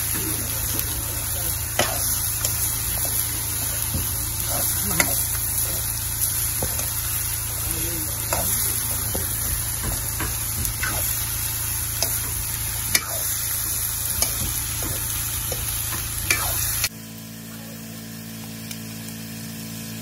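Food sizzling and frying in a two-handled metal wok (kadai) over a wood fire while a metal spatula stirs it, knocking and scraping against the pan every couple of seconds. About 17 seconds in the sound cuts abruptly to a quieter, steadier background.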